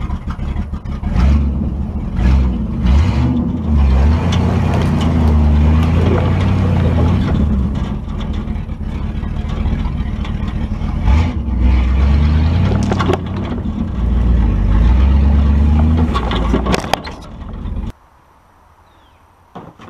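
1967 Mercury pickup's engine working under load as the truck drags a log on a rope, its pitch rising and falling as it is revved up and eased off again and again, with a few knocks. The sound cuts off suddenly near the end.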